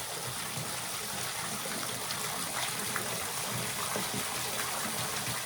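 Small waterfall spilling down several rock ledges: a steady rush and splash of falling water.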